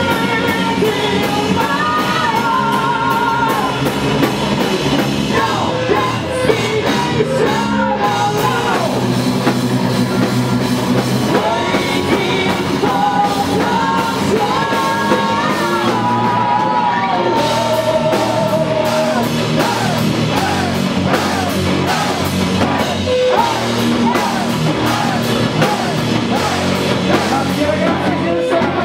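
Live power metal band playing: a woman sings lead, holding long wavering notes, over electric guitar and a full drum kit.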